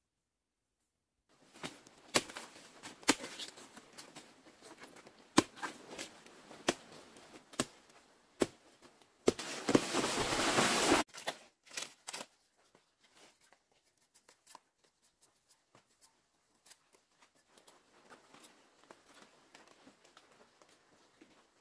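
Dry banana leaves and undergrowth rustling and crackling, broken by several sharp snaps or knocks, with a loud rush of rustling leaves lasting about two seconds near the middle. Only faint crackling in leaf litter follows.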